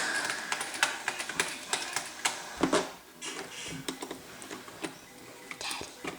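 Irregular small clicks and taps of hands working on a laptop's plastic case, with screwdriver and screws, and a louder knock a little before three seconds in.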